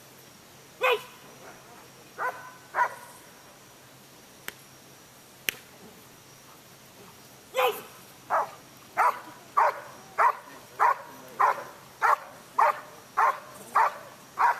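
Dog, a German Shepherd by its look, barking at a protection helper: three barks in the first three seconds, a pause with two sharp clicks, then a steady run of loud barks, about one and a half to two a second. This is the guard-and-bark after the dog has released the sleeve in Schutzhund protection work.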